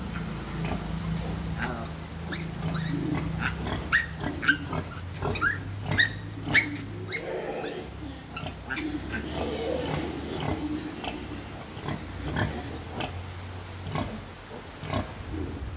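Piglets squeaking and squealing as they jostle and suckle at a nursing sow: many short, high squeaks, thickest in the first half, with a few lower pig sounds among them.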